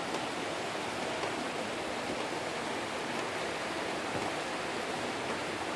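Steady rushing hiss of rain and floodwater running down a flooded street.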